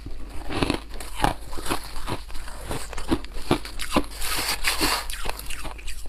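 A person chewing a mouthful of fluffy white ice close to the microphone: a steady run of sharp crunches, a few a second.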